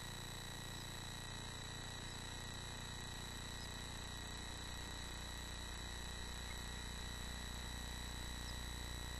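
Steady hiss and low hum with a constant high-pitched whine that never changes, typical of electrical noise on a nest box camera's audio; no bird calls stand out.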